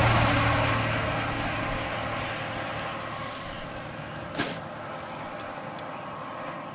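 Engine of a snow-clearing machine running, loud at first and then fading as it moves away, with a single sharp knock about four seconds in.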